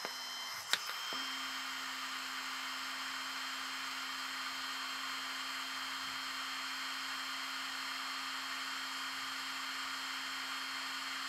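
858D+ hot air rework station's handpiece blower running steadily: an airy rush with a thin high whine, while the heater climbs from cold toward its 350 °C setting. A single click comes just under a second in, and a low steady hum joins shortly after.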